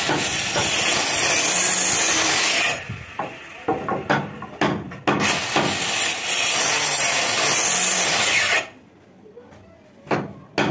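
Small handheld electric circular saw cutting into a wooden window-frame timber, two cuts of about three seconds each, with a few knocks of the wood and tool between them and near the end.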